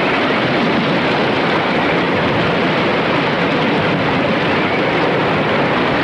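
Ocean surf breaking over a limestone rock shelf and pouring off its edge: a steady, even rush of water.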